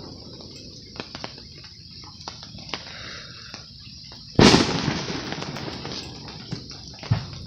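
Fireworks going off: a few scattered small pops, then one loud bang about four and a half seconds in that trails off over about a second, followed by more small pops.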